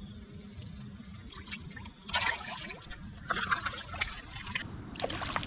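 Water splashing in three bursts over a few seconds as a released bass kicks in the shallows at the bank.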